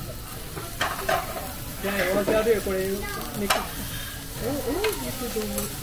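A spoon stirring a ceramic bowl of batter and shredded cabbage, with a few sharp clinks against the bowl, over the sizzle of the hot iron griddle as the mix is tipped onto it.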